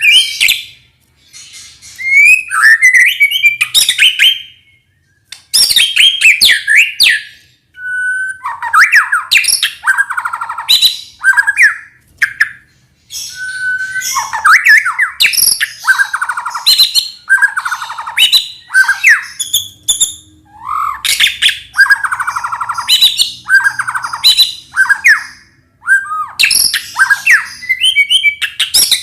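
White-rumped shama (murai batu) singing, with loud, varied phrases of sliding whistles, fast trills and harsh rasping notes separated by short pauses.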